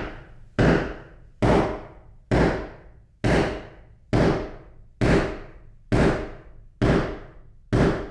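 A person knocking steadily on a hard surface: about ten evenly spaced knocks a little under a second apart, each dying away with a short ringing tail.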